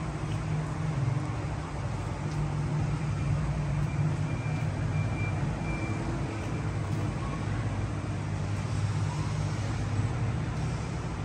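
Steady low mechanical hum with even background noise, keeping the same level throughout.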